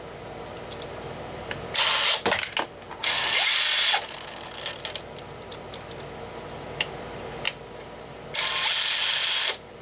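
Cordless angle grinder being fitted with a disc: three loud bursts of rasping, ratchet-like mechanical noise about a second each, with small clicks of handling between.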